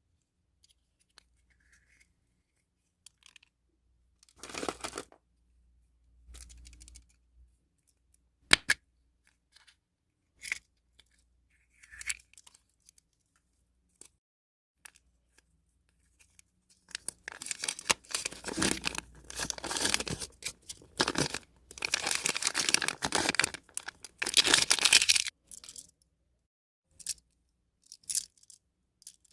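Foil wrapper of a Kinder Surprise egg being torn and crinkled off, in a few short rustles and sharp clicks at first, then a long stretch of continuous tearing and crinkling more than halfway through.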